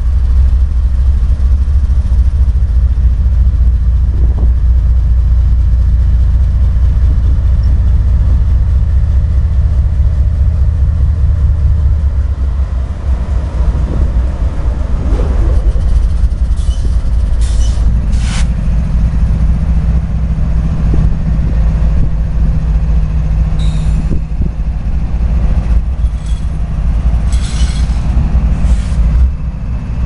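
Norfolk Southern diesel locomotives running slowly past with a heavy, steady low engine drone that eases off a little after the first dozen seconds. From about halfway through come several short, sharp high-pitched squeals and clanks from the wheels on the rough grade crossing.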